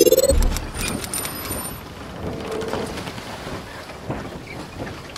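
Logo intro sound effects: a rising sweep ends in a low boom just after the start, then a brief high-pitched shimmer, then a steady hiss with scattered faint clicks.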